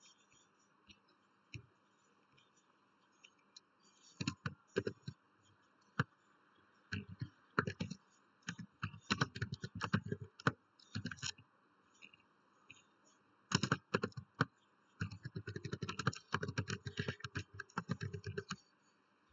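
Typing on a computer keyboard: quick runs of key clicks starting about four seconds in, with a short pause partway through.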